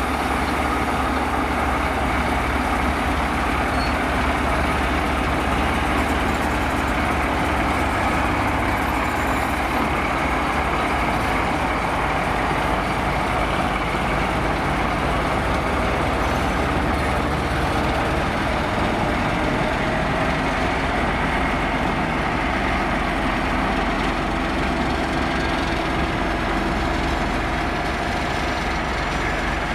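TEM18V diesel shunting locomotive running steadily as it rolls slowly past at close range and moves away, its engine sound easing slightly near the end.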